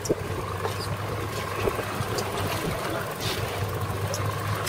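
Twin Evinrude outboard motors running with a steady low hum, over wind and water noise.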